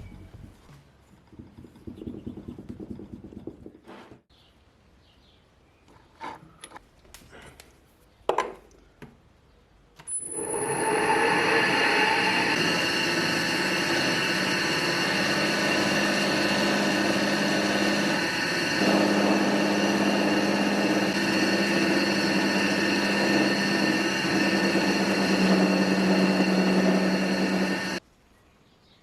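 A few light knocks, then an electric power tool runs steadily for about eighteen seconds with an even motor whine, its pitch shifting slightly twice as it takes load. It cuts off suddenly near the end.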